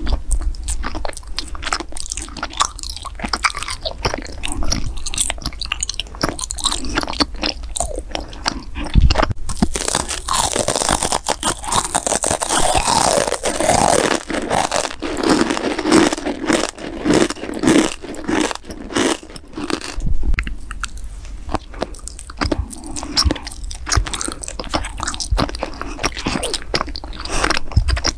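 Close-miked mouth eating sounds: biting, crunching and chewing of gummy candy and other sweets, many small clicks and smacks close together. A louder, hissier stretch comes roughly a third of the way through.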